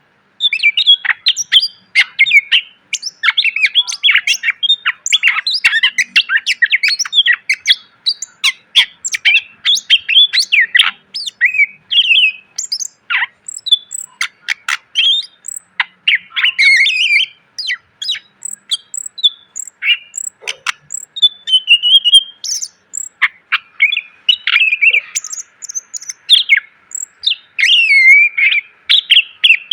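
Green leafbird (cucak ijo) singing loudly and continuously in rapid, varied chirps, trills and sweeping whistles, with only short pauses.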